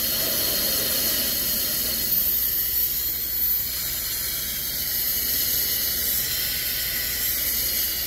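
Tymo hair dryer running at its highest fan speed (setting 3): a steady rush of air with a high whine.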